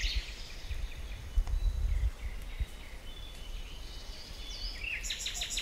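Forest ambience with scattered faint bird chirps and a low rumble in the first two seconds. Near the end, a bird sings a quick series of repeated high notes.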